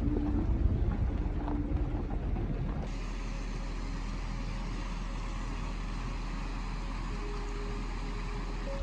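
Vehicle driving over a rough dirt track, an uneven engine and road rumble, which cuts off abruptly about three seconds in to the steady rushing of a fast mountain river.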